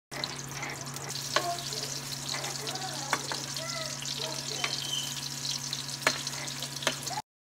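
Chopped onion sizzling in hot oil in a nonstick frying pan while a metal spatula stirs it, scraping and clicking against the pan every second or so. A steady low hum runs underneath.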